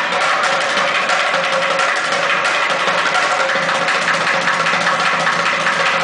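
Bucket drumming: two street drummers striking upturned plastic buckets with drumsticks in a fast, dense, steady stream of strokes.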